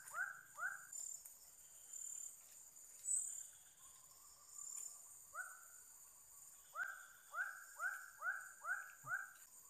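An animal calling in bouts of short notes, about three a second, each sweeping up in pitch and levelling off: a short bout at the start and a longer one in the second half. A steady high insect buzz runs underneath.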